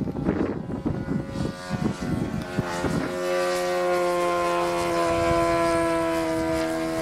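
Wind buffets the microphone for the first few seconds. Then a radio-controlled F4U Corsair model's Saito FG-20 single-cylinder four-stroke petrol engine comes in strongly as the plane flies past, its steady pitch slowly falling.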